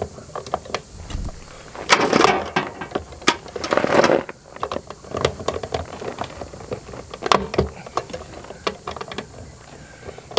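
Metal hand tools clicking and scraping against the fittings inside a Suburban RV water heater's access compartment while working at a hard-to-reach screw. The clicks come irregularly, with louder, longer scraping stretches about two and four seconds in.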